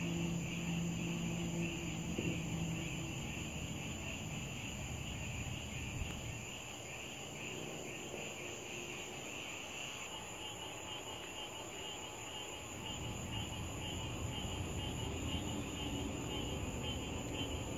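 Steady chorus of night insects chirping, with low background noise underneath. A low steady hum stops about three seconds in.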